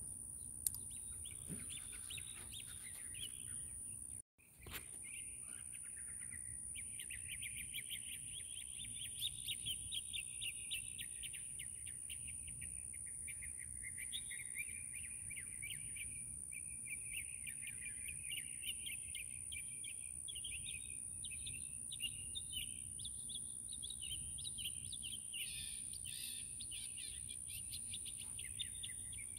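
Small birds chirping and twittering continuously in a busy chorus, over a thin, steady high whine. The sound drops out completely for a moment about four seconds in.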